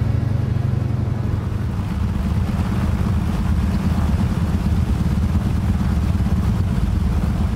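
De Havilland Beaver floatplane's engine running with a steady deep drone as the floats plough through the water, a rush of spray mixed in.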